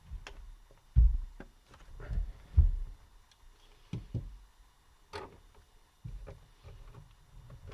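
Handling noise from an HP Pavilion dv7 laptop being worked on: scattered plastic clicks and taps, with a few dull thumps, the loudest about a second in and again near the middle.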